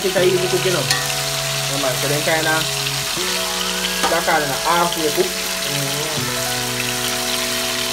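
Fish frying in hot oil in a metal pot, a steady sizzle, under background music with held chords that change about three and six seconds in and a singing voice.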